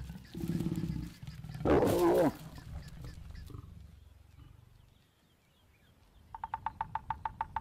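A lion growls, then gives a loud snarl about two seconds in that fades away: the snarl lions make when mating. Near the end comes a rapid run of about eight sharp taps a second from a woodpecker drumming on a dead tree trunk.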